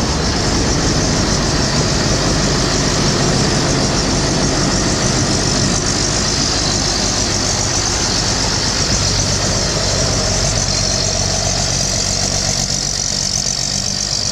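Combine harvester's engine running steadily, with a steady high hiss over the low hum.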